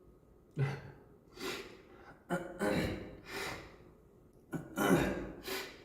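A man coughing repeatedly in a fit, about eight short harsh coughs and breaths in quick succession.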